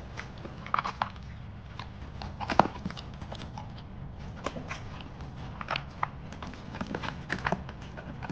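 Dogs chewing hard cheese-shaped milk treats: a run of irregular crisp crunches and clicks, the loudest about two and a half seconds in, over a steady low hum.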